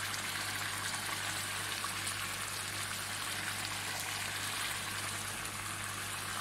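Meat curry with tomatoes simmering in a karahi on a gas flame, giving a steady, even sizzling hiss.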